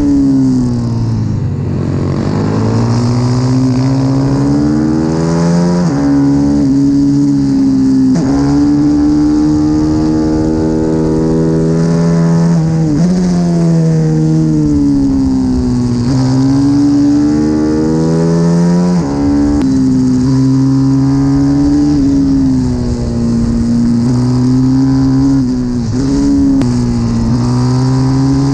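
A CW 140 pit bike's single-cylinder four-stroke engine at racing pace, heard from onboard: the revs rise and fall through the corners, with several sudden dips at gear changes. Wind noise runs underneath.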